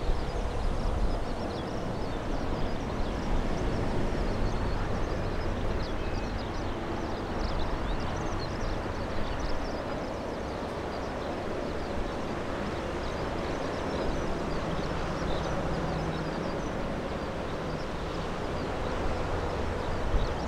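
Distant jet airliner, an Airbus A320neo on final approach, giving a steady low rumble with a faint hum, mixed with gusts of wind on the microphone and many short high chirps.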